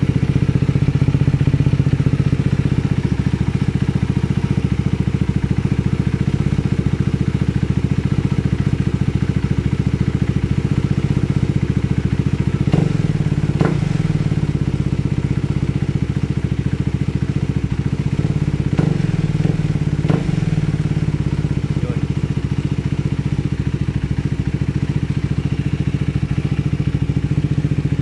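KTM RC390 single-cylinder engine idling steadily through an aftermarket Akrapovic-branded slip-on exhaust, with a few brief knocks near the middle.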